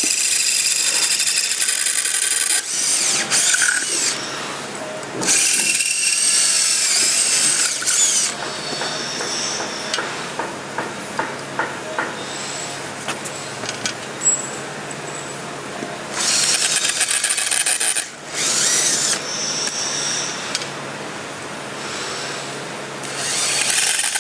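Electric drill running in several bursts of a few seconds each, its whine rising as it spins up, drilling holes through a cargo box to mount a rubber latch and bracket. Light clicks sound between bursts.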